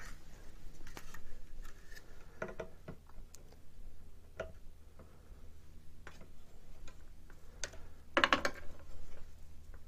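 Scattered light clicks and taps as an LCD controller board and its ribbon cables are handled and set against 3D-printed brackets on the printer's frame rail, with a louder clatter about eight seconds in.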